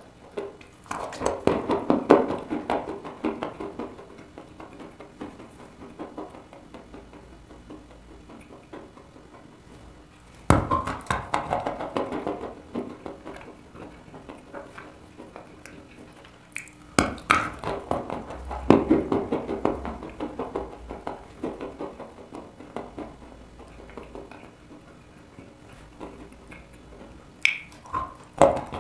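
Close-miked biting and chewing of a chunk of dry chalk. Several sharp bites each start a few seconds of crisp crunching, with quieter chewing between them.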